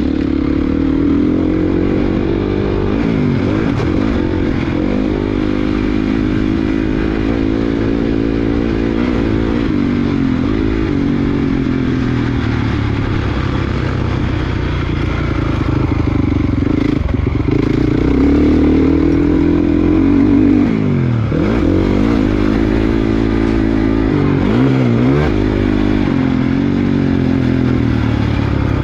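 Youth 58/65cc-class motocross bike engine heard from the rider's position, revving up and down continuously under race riding. Twice in the second half the revs drop sharply off the throttle and climb again.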